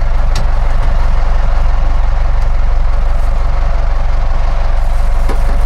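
Sportfishing boat's engine running steadily, a low, even hum with a constant rushing noise over it.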